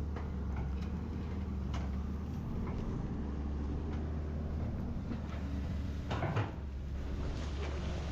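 Excavator engine running steadily, with scattered knocks and clanks and a louder clattering scrape about six seconds in, as the machine digs.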